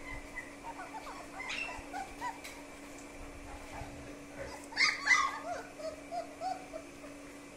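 Great Dane puppies whimpering and yipping with short, high calls, with a louder burst of yelps about five seconds in.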